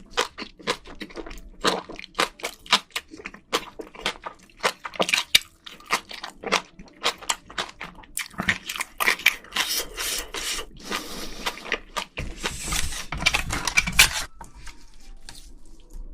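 Close-miked eating of spicy seafood: wet chewing and mouth smacks, with many sharp, irregular clicks and a denser noisy stretch about twelve seconds in.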